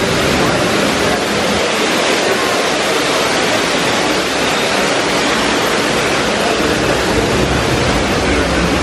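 Indoor waterfall: a wall of water pouring steadily into a pool, an even, unbroken rush.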